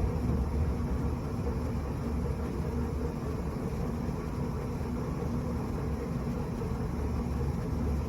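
Steady low rumble of a Tokyo Metro 8000-series train heard from inside the car as it runs along the track, with a faint steady hum.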